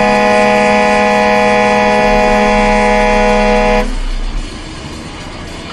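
A vehicle horn held in one long, steady, loud blast that stops about four seconds in, followed by steady road noise.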